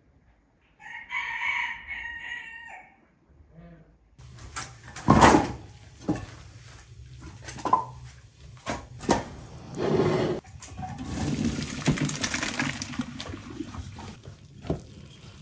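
A rooster crows once, about a second in. From about four seconds in come kitchen sounds: a metal skimmer knocking and scraping in a pot of boiled rice, and a rush of water as the rice is drained into a colander.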